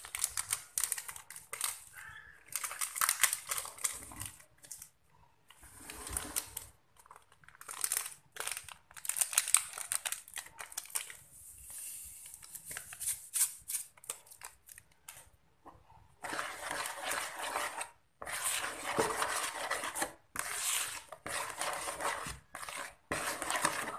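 Plastic sachet of Pop Ice powder crinkling and tearing, powder pouring into a plastic bowl of whipped ice-cream base, then a silicone spatula stirring and scraping through the foamy mixture, more steadily in the second half.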